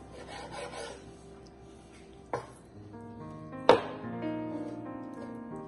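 Two knocks of a kitchen knife striking a wooden cutting board while cutting raw chicken, about two and a half and almost four seconds in, the second louder. Background music plays throughout.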